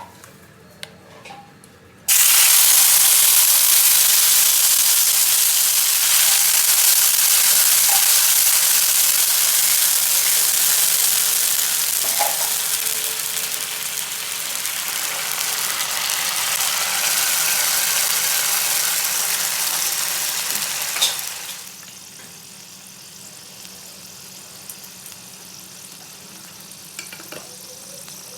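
Food frying in hot oil in a pan: a loud sizzle starts suddenly about two seconds in, then falls to a much quieter sizzle a few seconds before the end.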